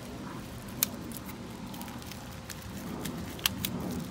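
Handling noise of a pool flow switch in its packaging: light rustling with a few sharp clicks, one about a second in and two close together near the end.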